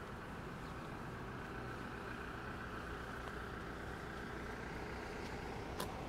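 Steady road traffic heard outdoors: a low, even rumble with a faint engine tone that swells and fades, and one sharp click near the end.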